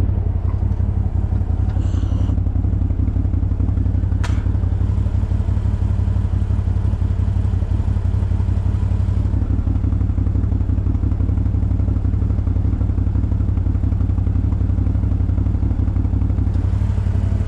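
CFMoto CF 1000's V-twin engine running hard and steady as it is driven fast over a rough dirt trail, with clatter and thuds from the machine over the ground.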